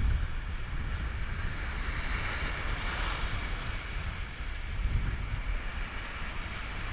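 Wind buffeting the microphone over the steady wash of waves breaking on a shallow reef.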